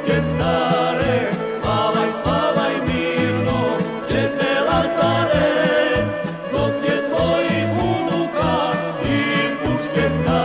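Serbian patriotic folk song: singing with wavering, ornamented vocal lines over instrumental accompaniment and a regular bass beat.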